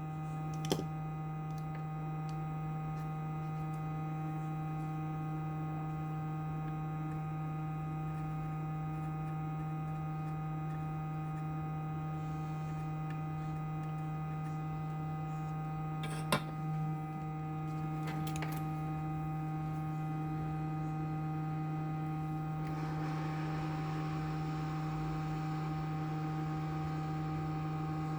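Steady electrical mains hum with a few faint clicks; a soft hiss joins the hum about five seconds before the end.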